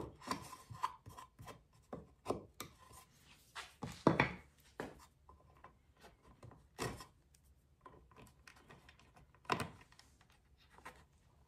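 Hand chisel paring and scraping walnut in small cuts at the edge of a hinge mortise, then a small brass butt hinge being handled and pressed into the mortise: irregular light scrapes and clicks, a few of them sharper.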